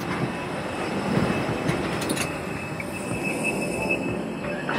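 Steady rushing jet aircraft noise on an airport apron, with a high steady whine coming in about halfway and a few sharp clicks just before it.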